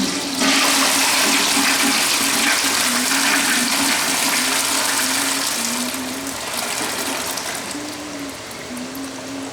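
Toilet flushing: a loud rush of water starts abruptly about half a second in and eases off over the last few seconds. A low, wavering tone runs under the water throughout.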